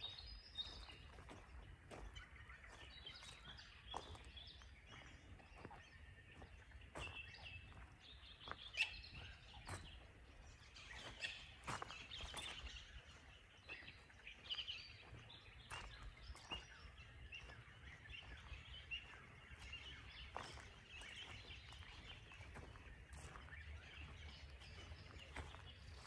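Faint birdsong: many small birds chirping and calling over one another, with scattered clicks and a low rumble underneath.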